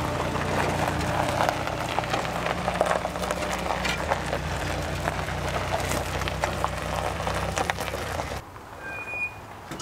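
Engine of the vehicle towing an old car on a chain, running steadily at low speed, with gravel crackling under the rolling tyres. The engine sound cuts off abruptly near the end.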